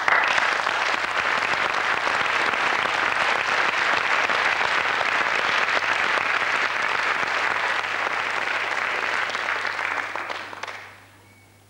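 Audience applauding, dense and steady, then dying away about eleven seconds in.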